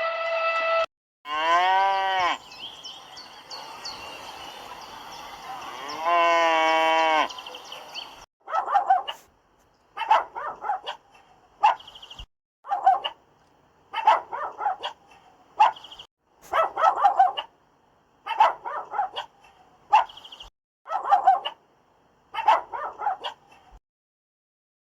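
A cow mooing twice in long calls that bend in pitch, followed by a run of about a dozen short animal calls, roughly one every second and a half.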